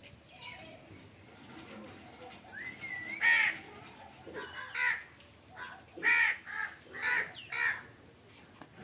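Crows cawing: about six short, harsh caws in the second half, the first the loudest, with a brief rising bird whistle just before them.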